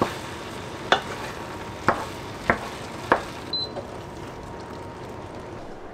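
A wooden spatula stirs a minced meat and tomato mixture in a pan, knocking against the pan five times in the first three seconds. Under the knocks the mixture keeps up a steady sizzle as it cooks on the hob.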